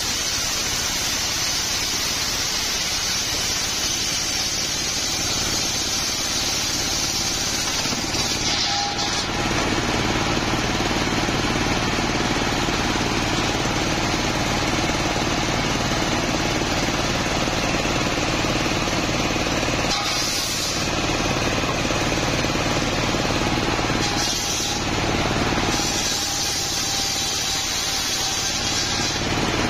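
Engine-driven table saw, a large circular blade ripping coconut palm wood lengthwise, with a sharp blade cutting easily. A loud hiss of the cut runs over the engine's steady drone for the first eight seconds. The saw then runs unloaded for a stretch, with only short cuts, and a new plank goes into the blade about four seconds before the end.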